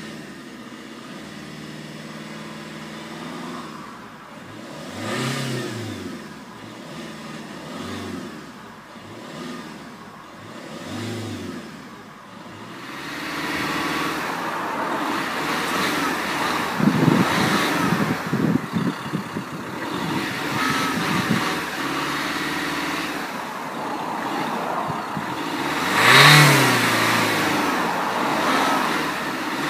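Vauxhall Combo van's engine idling and being blipped, with three short revs in the first half and one bigger rev near the end, heard first from the driver's seat and then at the exhaust tailpipe. A few seconds of fluttering low rumble in the middle.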